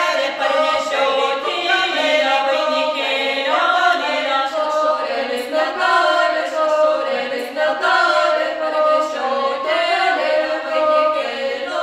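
A group of voices singing unaccompanied, a choir without instruments.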